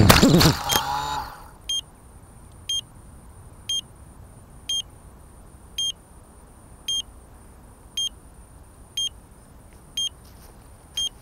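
The quadcopter's motors whine down in pitch and stop, with a few knocks, as it comes down into the grass. Then the downed quad gives a short high beep about once a second.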